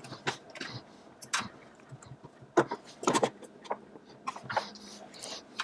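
Metal pegboard and clamp parts being handled and repositioned: scattered clicks and clinks of metal, with the loudest knocks about two and a half and three seconds in.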